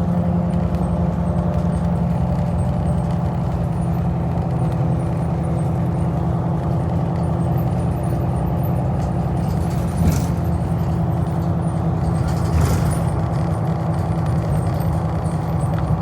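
A bus's engine running steadily with road noise, with two short knocks, about ten seconds in and again two and a half seconds later.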